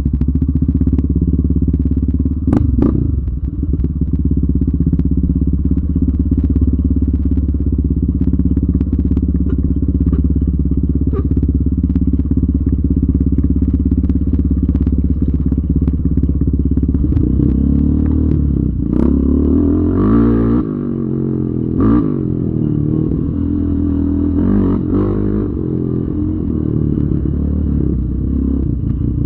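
Yamaha Raptor 700R ATV's single-cylinder engine running steadily at low revs, then from about 17 s in revving up and down through the throttle. A few sharp knocks and clatters come through over the engine.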